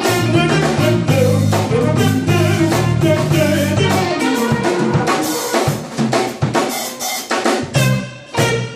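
Live soul band playing: a drum kit with snare, rimshot and bass-drum hits over a bass line and electric guitar, with a trumpet in the band. The low bass notes are heaviest in the first half and thin out after about four seconds.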